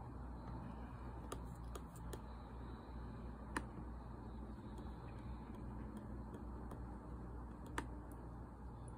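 A handful of sharp, scattered clicks from working a laptop while browsing, the loudest about three and a half seconds in and another near the end, over a low steady hum.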